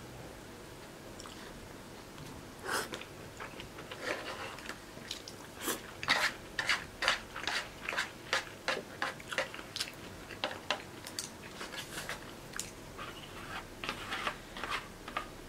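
A person chewing a mouthful of rice and pork cutlet close to the microphone. From about three seconds in there is a short sharp smack about two to three times a second.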